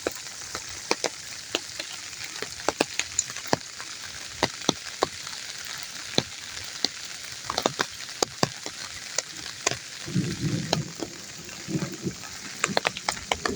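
Flash-flood runoff water rushing down a gully after heavy rain: a steady hiss dotted with many small splashing crackles. A brief muffled low sound comes in about ten seconds in and again near the end.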